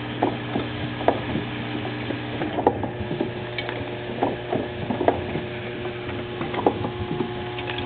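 Steady low hum of a vial filling machine, overlaid by irregular light clicks and clacks, about one or two a second.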